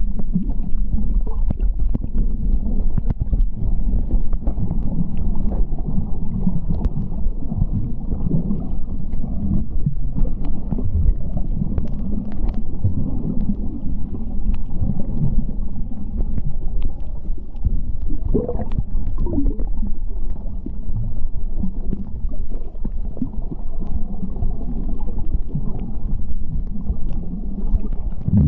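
Muffled underwater rumble recorded beneath the sea surface, steady and low, with occasional gurgling of bubbles and faint ticks.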